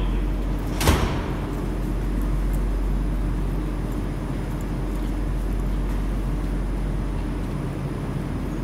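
Steady hum and low rumble of a Rusich articulated metro train standing at an underground platform with its doors open, mixed with the station's background drone. One sharp knock about a second in.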